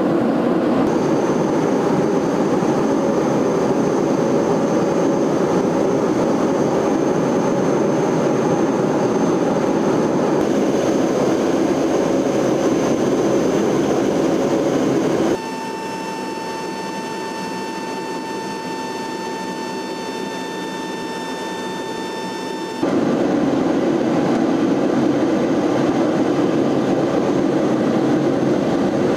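Steady cabin drone of a C-130's four turboprop engines in flight. For several seconds past the middle it turns quieter and becomes a set of steady whining tones, then the heavy drone returns.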